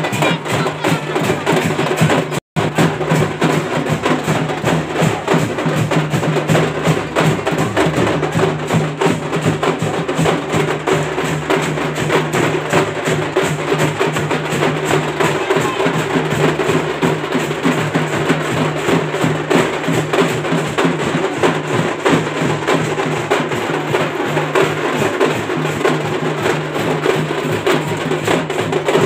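Rapid, continuous drumming, many fast strikes without a pause, cut by a split-second dropout about two and a half seconds in.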